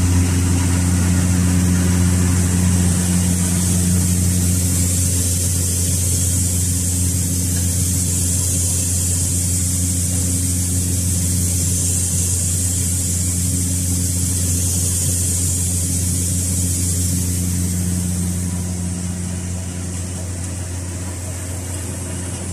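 25SC seed cleaning machine running: a steady low hum with a high hiss over it, a little quieter in the last few seconds.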